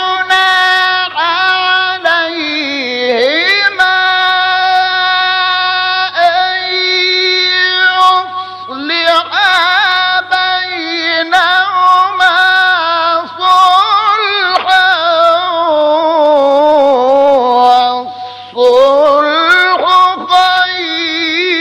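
A single reciter's voice chanting the Quran in melodic tajweed style, drawing out long held notes with ornamented rises and falls in pitch, with a short break for breath about three quarters of the way through.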